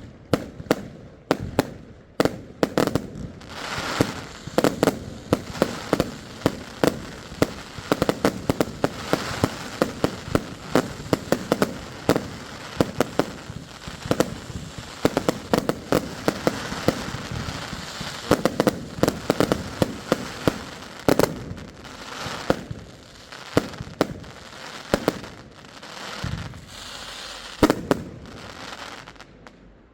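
Fireworks going off: many sharp bangs in quick succession over a steady crackling, which stops suddenly just before the end.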